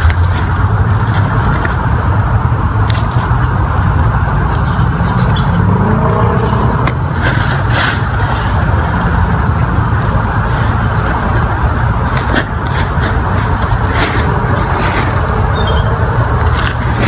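Steady, loud, low rumbling noise with no clear pitch, with a faint high chirp repeating a couple of times a second.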